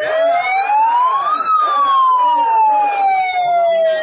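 An emergency siren wailing: one slow rise in pitch for about a second and a half, then a longer, slower fall.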